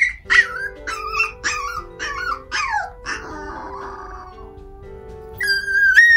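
Micro teacup toy poodle giving a quick string of about six short, high yelps, then a long high-pitched whine near the end, over soft background music.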